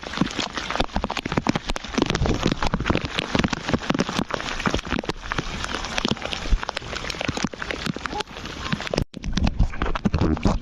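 Water splashing and spattering close to the microphone, a dense run of small crackling splashes as a canoe paddles through the sea; the sound cuts out for an instant about nine seconds in.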